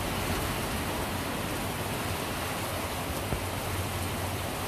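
Steady rain falling, an even hiss, with a single small knock about three seconds in.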